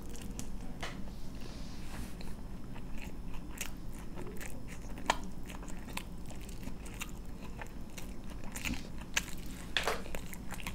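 Close-miked chewing and crunching of a mouthful of food, with irregular sharp crackles scattered throughout.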